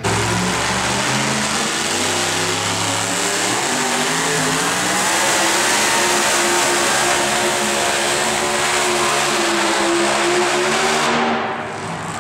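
Engine of a 2WD super modified pulling truck running wide open as it drags a weight-transfer sled, a loud steady engine sound whose pitch climbs slowly. About a second before the end it drops off sharply as the pull ends.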